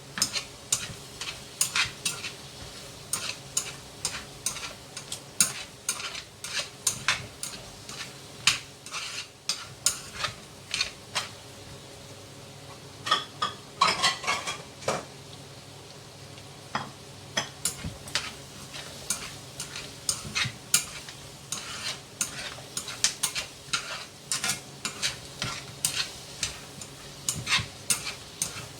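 Duck pieces frying in a fish-sauce glaze, sizzling, while a utensil stirs and tosses them in the pan, with frequent irregular clicks and knocks against the pan. A faint steady hum runs underneath.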